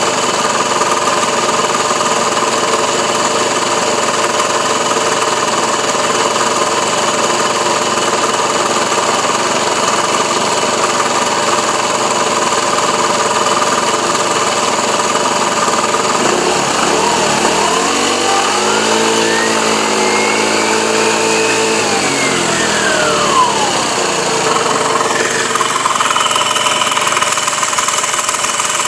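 Benzhou YY50QT 50cc scooter engine idling with a rattle. About sixteen seconds in, the engine revs up, holds for a few seconds, and falls back to idle at about twenty-four seconds. The rattle and vibration are the fault being shown.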